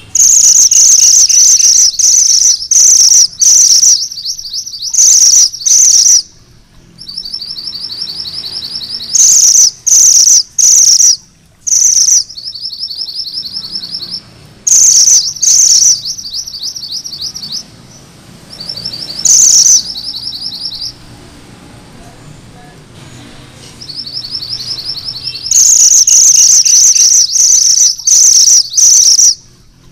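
Mantenan gunung merah, a red-and-black songbird, singing its rolling trill ('ngerol'). Loud, very high runs of fast notes lasting a few seconds each alternate with softer, slightly lower trills.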